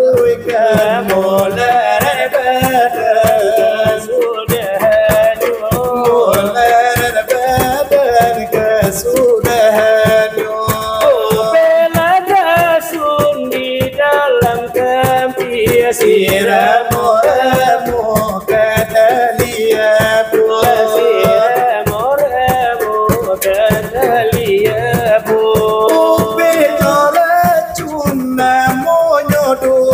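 Salawat dulang: male voices singing a melismatic Minangkabau devotional song, accompanied by a fast, steady clatter of large brass trays (dulang) beaten by hand.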